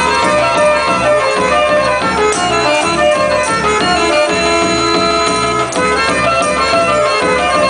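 Southern Serbian folk dance music from the Vranje region, with a steady beat under a running melody. Now and then the dancers' frame tambourines jingle.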